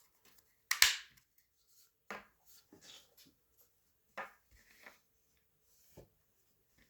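Scattered clicks and knocks of small parts being handled and fitted into a paintball marker's receiver, the loudest about a second in, with faint rubbing between.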